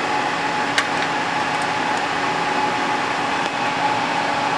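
Steady whirring hiss of equipment cooling fans in a radio repeater rack, with a steady whine under it. A few faint clicks come from a screwdriver fastening a rack-mount unit.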